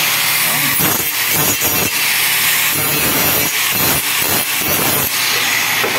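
Electric angle grinder running and grinding the cut edge of a rolled carbon-steel duct segment, the sound surging and easing again and again as the disc bites the metal.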